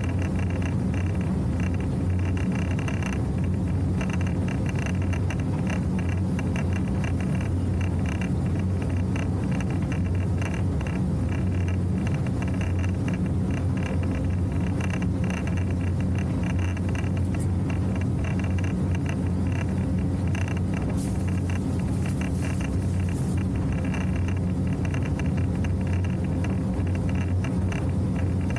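Motorboat engine running steadily at cruising speed, a constant low drone with water rushing along the hull as the boat runs through open water.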